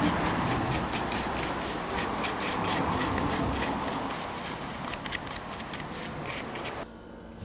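Brisk brushing over the carved wooden surface of a lion-head mask, clearing off dried tonoko polishing powder, in quick even strokes several times a second that stop shortly before the end.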